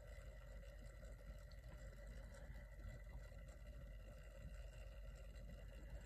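Faint ticking of an original Jeep CJ dashboard quartz clock running, over a steady low hum.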